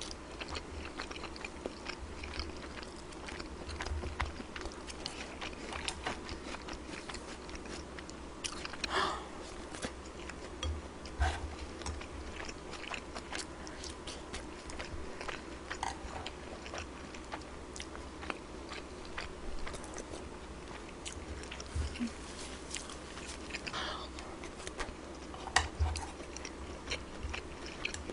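Close-up chewing and mouth sounds of someone eating kimchi fried rice with pork belly, with many small scattered clicks and smacks.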